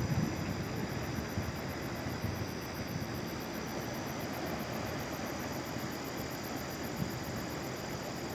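Steady outdoor background noise: an even rush with faint, steady high tones above it.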